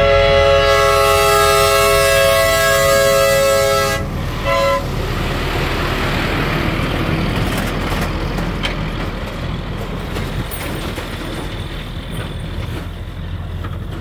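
A train horn mounted on a Freightliner Classic semi truck sounds a loud chord of several notes, which cuts off about four seconds in, then gives one short toot. After that the truck's engine and tires rumble as it passes close by and pulls away, slowly fading.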